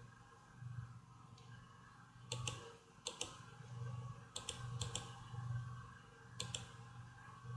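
Faint computer mouse clicking: four quick pairs of clicks, a second or two apart.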